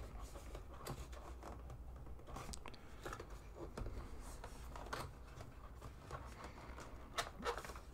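Faint rustling, scraping and scattered light taps of a cardboard box being handled as its end flaps and pull tab are worked open.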